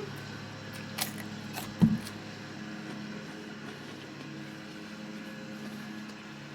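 Steady low motor hum, like a distant engine, with a sharp click about a second in and a short low sound just before two seconds.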